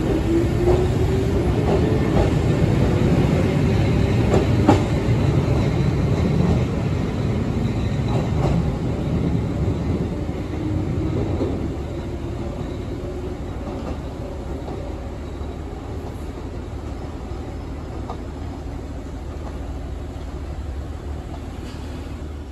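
Izuhakone Railway 7000 series electric train, a resistance-control set with TD cardan drive, pulling out of a station. Its traction motor whine rises in pitch as it accelerates, and the wheels click over rail joints. After about twelve seconds the sound settles into a fading rumble as the train runs off into the distance.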